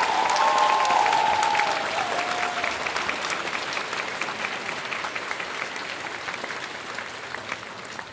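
A crowd applauding and cheering, with a few whistles in the first two seconds. The clapping gradually dies away.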